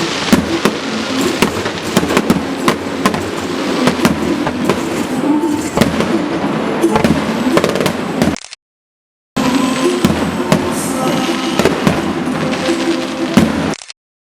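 Aerial fireworks bursting in a dense run of pops, bangs and crackles, with music playing underneath. The sound drops out for a moment about eight and a half seconds in and again near the end.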